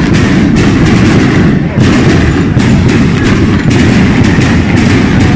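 A street 'batteria': a long chain of firecrackers laid along the street going off in a rapid, continuous barrage of very loud bangs.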